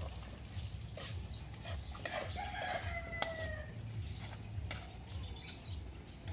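A rooster crows once, a long call with a slight fall in pitch a couple of seconds in, over scattered sharp knocks from a steel digging bar striking hard soil in a foundation trench.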